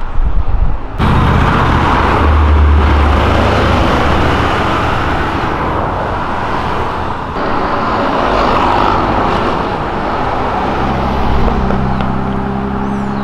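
Several cars driving past and pulling away along a city street: engines running over tyre and road noise, with one engine's note standing out more clearly near the end.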